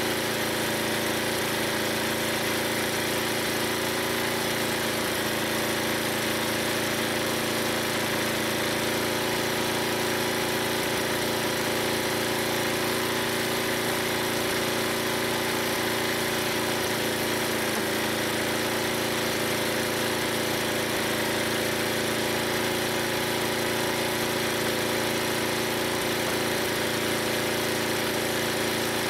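Old 11 HP Briggs & Stratton gas engine running at a steady speed, belted to an antique log splitter.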